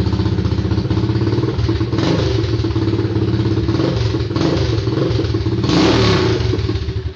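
Engine running with its exhaust silencer removed, idling with a loud, rapid pulsing exhaust beat and blipped up a few times, then switched off at the end.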